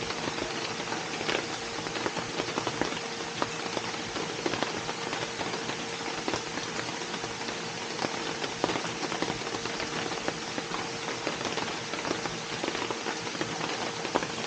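Steady rain falling, with many individual drops ticking sharply on a hard surface over an even hiss. A faint steady hum runs underneath.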